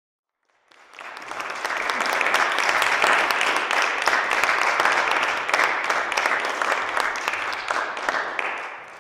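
Audience applauding, building up over the first couple of seconds from a start just under a second in, then holding steady as dense clapping.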